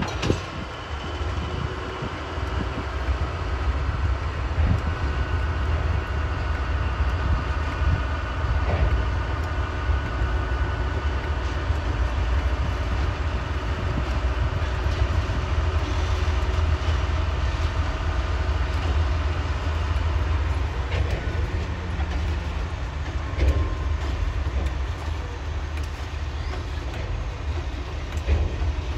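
Diesel-electric freight locomotives rolling slowly past, their engines making a steady deep rumble. A few clanks and a faint high squeal come now and then.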